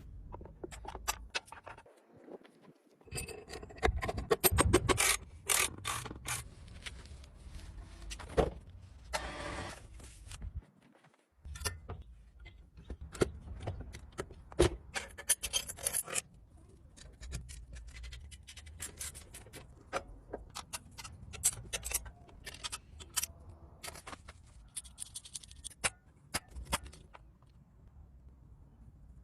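Hand work on bicycle parts: irregular scraping and rubbing with many sharp clicks and light knocks, busiest between about 3 and 16 seconds in.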